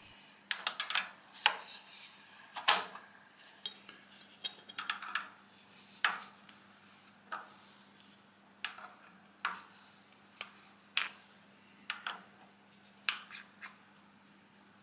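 Irregular metallic clinks and knocks from machine tooling being handled: an ER40 collet block holding a brass blank being set in a steel mill vise, and its clamping nut worked with a C-spanner. A faint steady low hum runs underneath.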